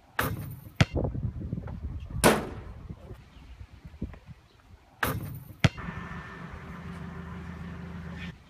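A basketball knocking against an outdoor backboard and rim, several sharp knocks and thuds, followed near the end by a steady low hum.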